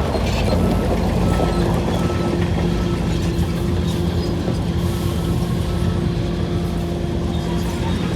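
Shantui DH17C3 crawler bulldozer's diesel engine running steadily under load while pushing soil, a dense low rumble with a constant engine note.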